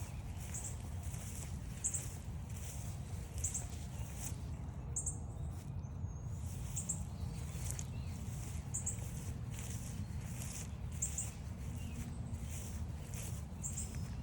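Footsteps walking along a forest trail at a steady pace, with a bird's short, high note repeating every second or so over a steady low rumble.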